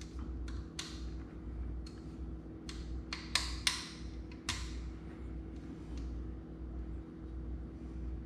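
Hands working on the battery and wiring of a kids' electric quad: scattered light clicks and taps of plastic parts and connectors, with a cluster of sharper clicks around three seconds in, over a steady low hum.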